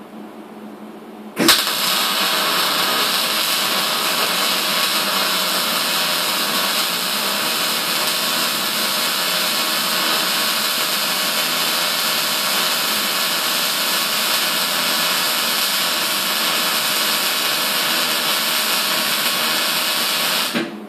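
Electric arc welding a hinge: the arc strikes with a sharp crack about a second and a half in, then runs as a loud, steady hiss for about nineteen seconds and cuts off shortly before the end. A steady low hum sits under it before and after.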